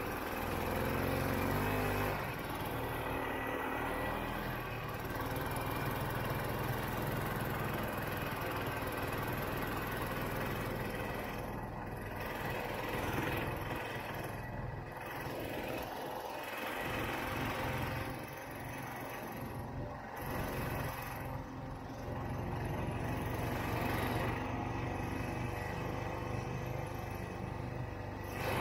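Vintage Ski-Doo Olympic snowmobile's two-stroke engine running under way, its revs dropping and picking up again several times.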